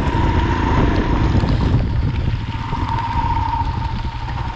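Royal Enfield Himalayan's single-cylinder engine running steadily under load on a climb, with wind noise over the microphone.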